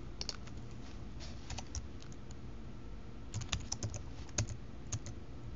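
Typing on a computer keyboard: a few scattered keystrokes, then a quicker run of key clicks in the second half, over a low steady background hum.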